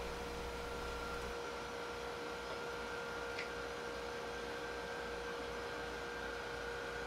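Low steady hum with two steady thin tones over a faint hiss: background hum. A low rumble beneath it drops away about a second and a half in.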